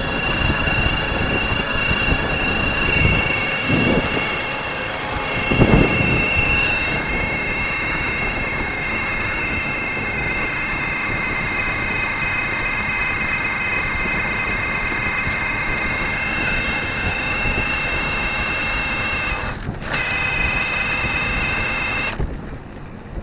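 Electric bike being ridden: a steady high motor whine over wind rush on the microphone. The whine steps in pitch a few seconds in, and everything cuts off about a second before the end as the bike stops.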